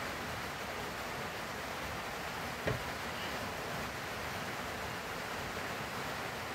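Steady hiss of room or recording noise, with one brief soft knock about two and a half seconds in.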